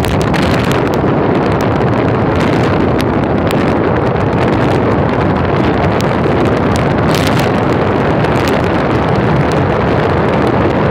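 Loud, steady wind rushing over the microphone of a phone held out of the window of a moving car, with sharp crackles of buffeting now and then.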